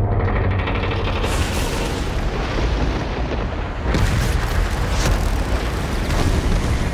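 Cinematic sound mix of heavy booms and explosions over a dense, continuous roar, with music underneath. There is a sharp hit about four seconds in and another about a second later.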